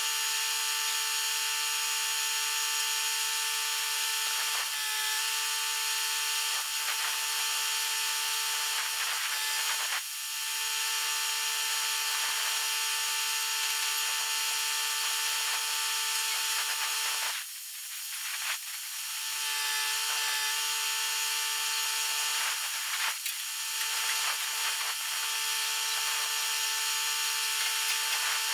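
Handheld power tool running steadily with a high whine and hiss; it stops for about a second after roughly 17 seconds and spins back up.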